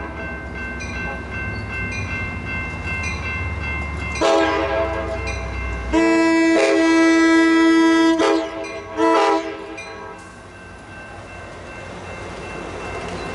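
Amtrak Surfliner cab car's horn sounding a long blast about four seconds in, a louder long blast right after it, and a short blast about nine seconds in. Beneath it is the low rumble of the moving train.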